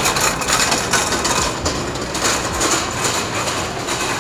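Wire shopping cart rattling and clattering as it is pushed over a hard store floor, an uneven run of small metal knocks.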